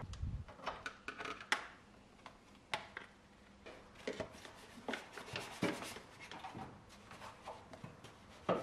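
Scattered light clicks and taps of a hand tool and fingers working at the mounting of a plastic coolant expansion tank, with a few sharper knocks.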